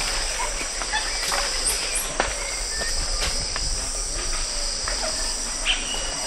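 Capuchin monkeys feeding at close range alongside squirrel monkeys: scattered sharp snaps and cracks of food and twigs, with short high chirps and whistles. A steady high drone of insects and birds calling sits behind.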